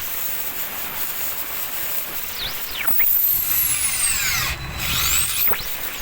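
Hitachi DV13VSS electric drill running with its stator coil newly replaced, its high motor whine gliding down and back up in pitch several times as it slows and speeds up.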